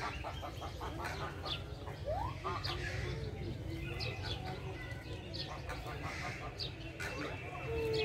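Chirps and calls of mixed birds in an aviary: many short high chirps, a rising call a couple of seconds in and a falling whistle-like call near the end, over a steady low rumble.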